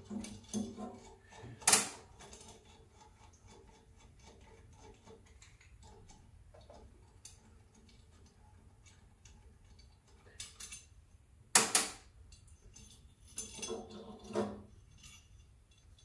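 Scattered small metallic clicks and clinks of a screwdriver, screws and metal parts as the ignition and flame rectification electrode is unscrewed from a gas boiler's burner. One sharp click comes a couple of seconds in and a louder double click about three-quarters of the way through.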